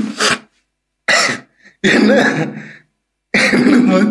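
A man laughing hard in four short bursts with gaps between them.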